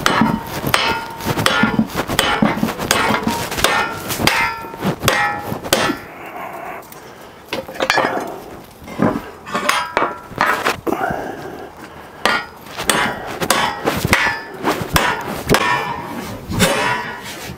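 Repeated hammer blows on a steel tab fillet-welded to a flat bar clamped in a vise, sharp metallic clangs with brief ringing that come in flurries with short pauses, bending the tab over in a destructive test of the weld.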